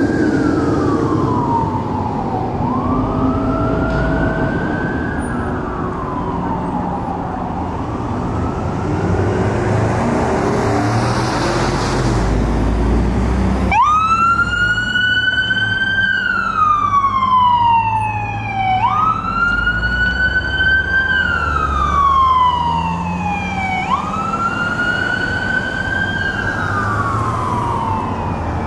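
Emergency vehicle siren on a slow wail, each cycle rising and then sliding back down over about five seconds, over the low rumble of engines and traffic. About halfway through it cuts abruptly to a louder, clearer siren on the same wail.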